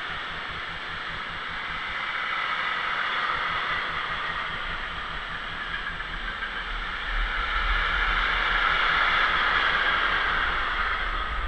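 Freight train of empty container flat wagons rolling past, a steady rushing noise of wheels on rails. A low rumble joins about halfway through, and the noise grows louder for the last few seconds.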